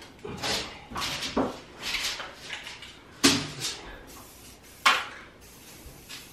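Irregular knocks, clatters and rustles of hands-on work with wire and tools overhead, the two loudest sharp knocks about three and five seconds in, in a small bare-framed room.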